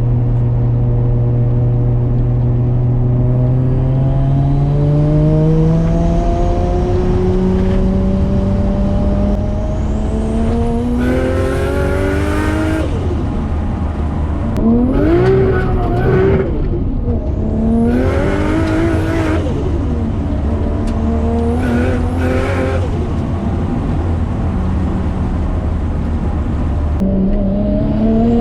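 Built RB25DET turbo straight-six in an R33 Skyline accelerating, its pitch climbing slowly for about ten seconds, then four short hard pulls under boost, each with a loud hiss from the screamer pipe and turbo flutter as the revs drop between them.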